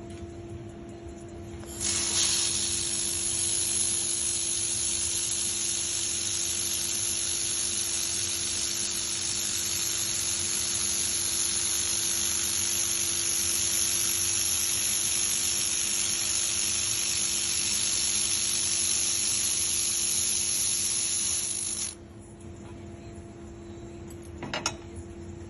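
Handheld fiber laser welding gun running one long weld on stainless steel: a steady hiss of shielding gas from the nozzle with a thin high whine above it, switching on about two seconds in and cutting off sharply a few seconds before the end. Beneath it runs a constant low hum from the welding machine.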